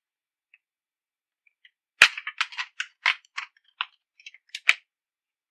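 Metal watercolour paint tin handled and opened on a wooden table: a quick run of sharp clicks and clacks, loudest about two seconds in and again near the end.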